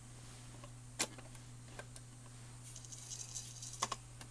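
1967 Magnavox record changer cycling a stack of 45s on its replacement spindle: a sharp click about a second in, a light rattle around three seconds, and two quick clicks near the end, over a steady low hum.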